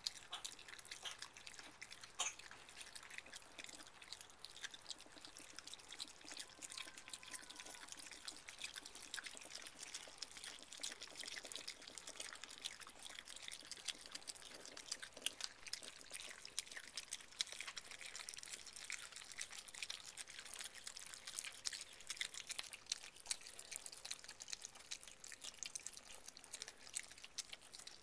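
Virginia opossums chewing and smacking moist diced food from a plate, a dense stream of small wet clicks and smacks.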